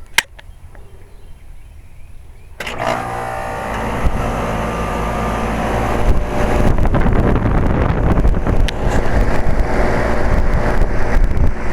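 A single sharp click just after the start, then about two and a half seconds in a central air-conditioner condensing unit starts up: a sudden steady hum of compressor and fan that grows louder over the next few seconds.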